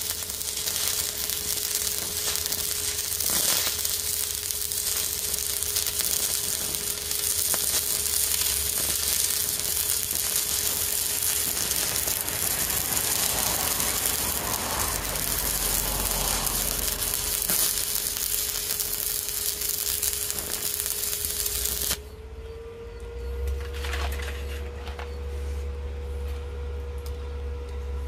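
Stick-welding arc from a 2.5 mm electrode crackling and sizzling steadily, breaking off abruptly about 22 seconds in. Under it runs a steady whine from the portable welder, which lifts slightly in pitch when the arc stops.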